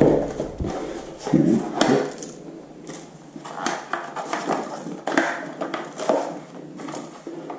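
Handling noise of unboxing: packaging and small plastic parts rustling, clicking and knocking as they are picked up and moved about.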